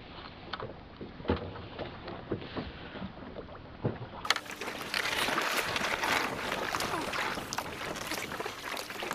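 Water slapping and splashing against the hull of a small boat on choppy sea, with scattered knocks from handling the fishing rod and reel. About four seconds in, the water wash gets louder and brighter.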